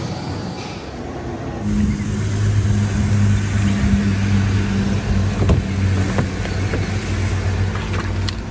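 A vehicle engine running with a steady low hum that comes in about a second and a half in, with a few short clicks or knocks in the second half.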